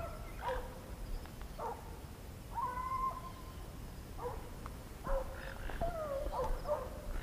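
Hunting dog whining: a run of short high whines with a couple of longer held ones, some falling in pitch.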